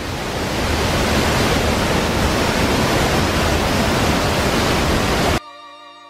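Close, steady rush of a large waterfall in full flow, swelling in over the first second and cutting off suddenly about five seconds in. Quiet background music follows near the end.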